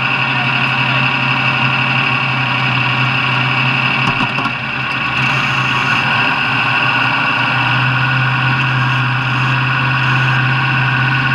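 A steady engine drone holding a constant pitch, with a brief dip in level about four and a half seconds in.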